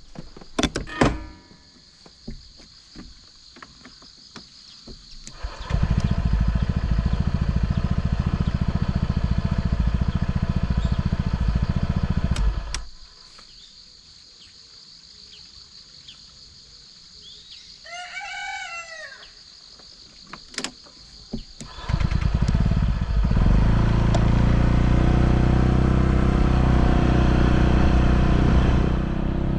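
Honda PCX scooter's single-cylinder engine running steadily for about seven seconds, then going quiet. In the quiet a rooster crows once, and about three seconds later the engine is running again, steady to the end. A few light clicks come in the first second.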